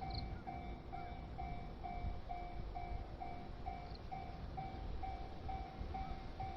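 Railway level-crossing warning bell ringing, a steady ding repeated about twice a second, which signals that a train is coming. A low rumble sits underneath.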